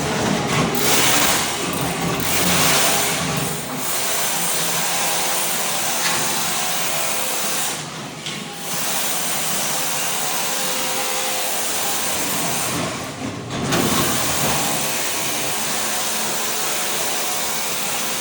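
Ride-on floor scraper running, its blade scraping thin-set mortar off a concrete slab: a loud, steady grinding scrape that drops off briefly twice.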